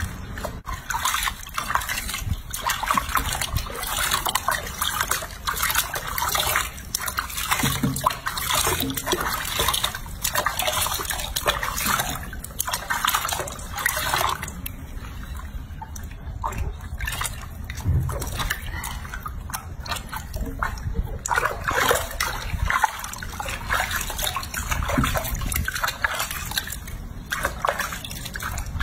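Water sloshing and splashing in a sink as hands rub and scoop bathwater over a small monkey, in irregular bursts throughout.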